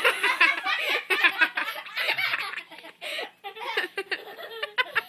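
People laughing, quick and choppy, with a brief lull about halfway through.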